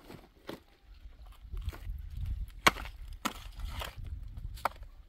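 Wood being knocked and cracked: about five sharp, irregular knocks and snaps of timber, the loudest a little past halfway.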